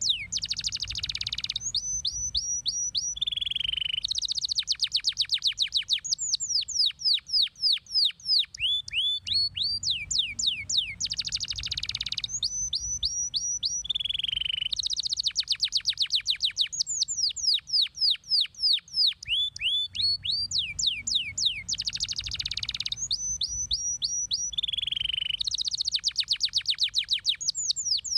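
Domestic canary singing a long, unbroken song: fast trills of rapid, high, downward-sweeping notes alternating with denser rolling phrases. The same sequence comes round about every ten seconds.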